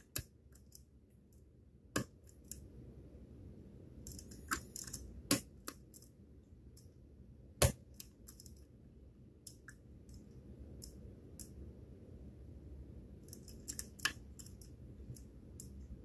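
Small metallic clicks and scrapes of a lock pick working the pins inside a pin-tumbler lock cylinder held under tension. The clicks come at irregular times, with a few sharper ones spread through.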